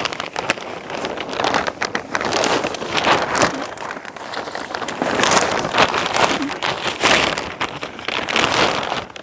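Thick black plastic 55-gallon drum liners rustling and crinkling as they are handled and slid along a wooden pole, in uneven surges.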